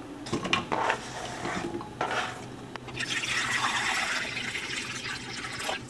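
A few brief handling clatters, then water pouring steadily into a pot for about three seconds.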